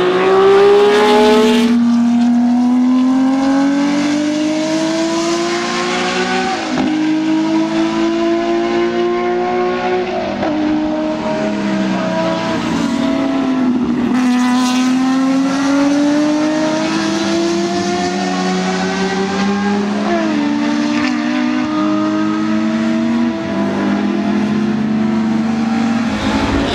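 Racing car engines at full throttle, climbing in pitch and dropping sharply at each upshift, again and again. First comes the BMW M1's straight-six, then a classic Porsche 911's flat-six.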